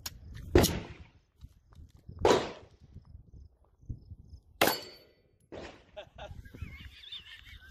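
Three loud gunshots about two seconds apart from a Glock pistol fitted in a CAA Micro-Roni carbine conversion kit, fired at steel targets, with metallic clangs among the reports.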